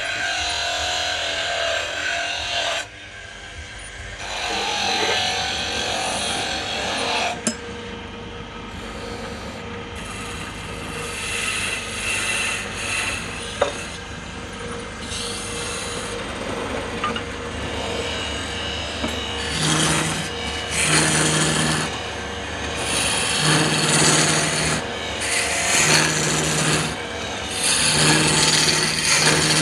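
A tool abrading wood with a rough rasping, scraping sound. In the second half it comes in repeated strokes about one a second.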